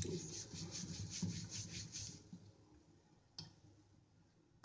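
Wooden rolling pin rolling out dough on a marble rolling board: quick back-and-forth rubbing strokes, about five a second, for two seconds. Then a single knock a little after three seconds in.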